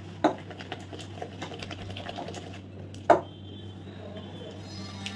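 A silicone spatula stirring and scraping butter and powdered sugar in a glass bowl: a run of soft clicks and scrapes, with two sharper knocks, one just after the start and one about three seconds in.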